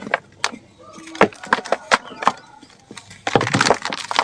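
Dried sand-and-cement clumps cracking and crumbling: a run of sharp cracks and crunches, then a longer, denser crumble near the end.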